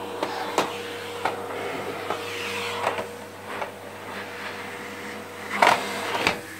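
A Bosch quiet-model vacuum cleaner running at its highest power setting with a steady, fairly subdued hum. Short knocks and clatters break in every second or so, the loudest about five and a half seconds in and again just after six.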